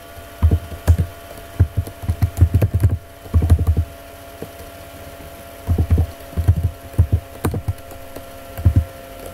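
Keystrokes on a computer keyboard in short, irregular bursts, each key landing with a dull low thump, over a faint steady hum.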